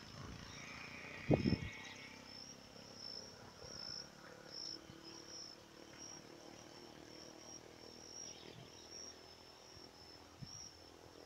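Insects chirping steadily in a high, pulsing trill. A brief low thump comes about a second and a half in.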